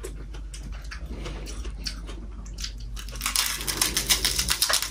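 Eating sounds close by: chewing and food handled by hand on plates, a run of quick small clicks and crackles that grows busier about three seconds in.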